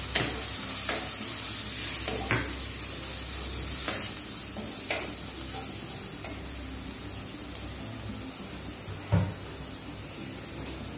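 Onion, garlic and tomato masala with sambar powder sizzling in a clay pot while a spatula stirs it, scraping against the pot every second or two. The sizzle slowly gets a little quieter.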